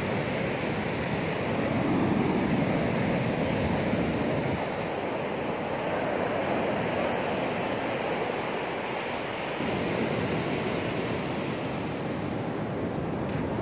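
Ocean surf washing on a sandy beach: a steady rush that swells about two seconds in and eases a little around nine seconds.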